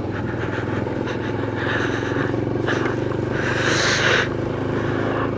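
Motorcycle engine running steadily while riding, with a brief rush of hiss about three and a half seconds in.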